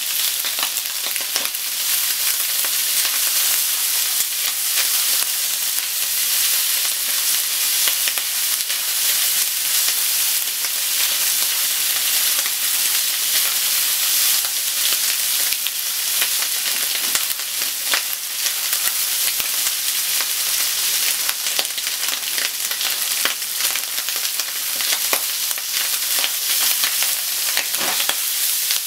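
Bacon and sliced onion sizzling steadily in a frying pan, stirred with wooden chopsticks that click and scrape against the pan now and then.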